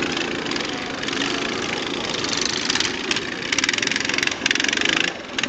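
Small go-kart engine running as the kart drives around the track, dipping briefly in level near the end.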